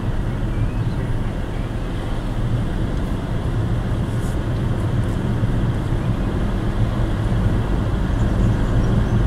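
A car driving at steady speed, its engine and tyre noise heard from inside the cabin as a continuous low hum, growing slightly louder near the end.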